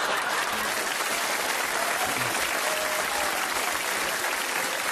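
Live audience applauding a joke: steady, dense clapping with no pause.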